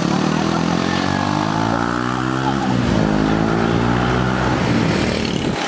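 Street traffic heard from a moving open-sided electric cart, with road and wind noise. A nearby engine climbs steadily in pitch as it speeds up, then drops about two and a half seconds in.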